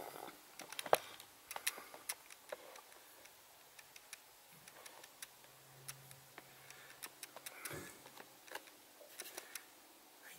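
Faint, irregular ticks, clicks and rustles of a squirrel gnawing and tugging at a sheet of black fabric.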